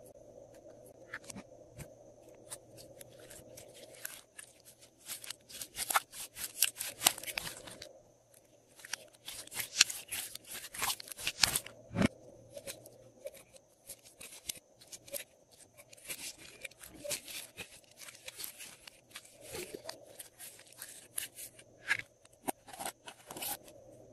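Glossy slime being squeezed and stretched by hand, giving rapid crackling and popping clicks in several bursts as the air pockets in it break.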